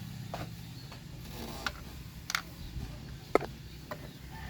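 A few scattered short clicks and knocks, the loudest about three seconds in, as a replacement car battery and its sleeve spacer are handled and pushed into the battery tray, over a steady low hum.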